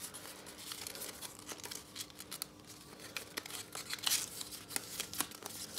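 Square sheet of origami paper rustling and crinkling as it is folded and creased by hand, with a scatter of short crackles and a louder rustle about four seconds in.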